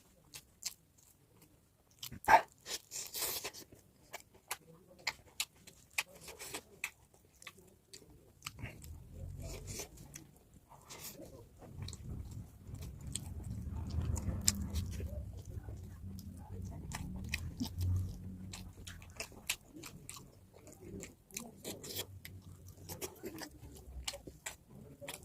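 Close-miked mouth sounds of someone eating pork: biting and chewing with many sharp, wet clicks and crunches, and a low rumble through the middle stretch.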